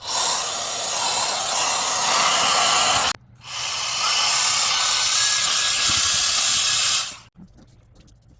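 Mini cordless air gun with a high-speed brushless motor running in two bursts of about three seconds each with a short break between, a loud steady rush of air.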